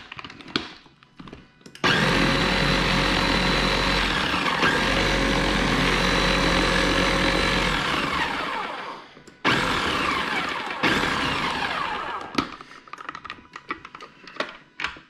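Electric blender running on chimichurri: a steady run of about six seconds with a brief dip partway, then after a short pause a second, shorter run that dies away. A few small clicks and knocks follow.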